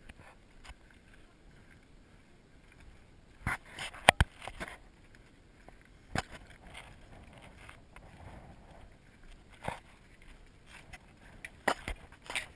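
Footsteps on loose scree and rock: a handful of sharp, irregular footfalls with crunches and scrapes of stone, the loudest about four seconds in, with quiet between them.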